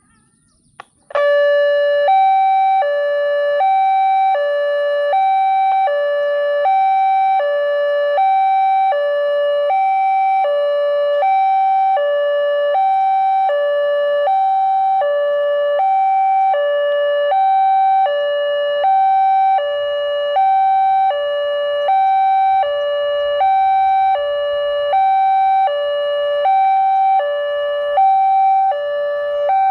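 Automatic railway level-crossing warning alarm starting about a second in, just after a click: a slow two-tone hi-lo alarm through a horn speaker, switching back and forth between two pitches roughly once a second, the signal that a train is approaching the crossing.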